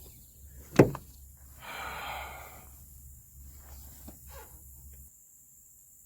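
Handling noises from work inside a truck door: one sharp knock about a second in, then a second or so of scraping, and a few light clicks. The low background hum cuts off suddenly near the end.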